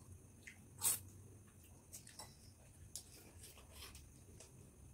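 Eating sounds: scattered short mouth clicks and smacks of people chewing food eaten by hand, with one louder sharp smack about a second in.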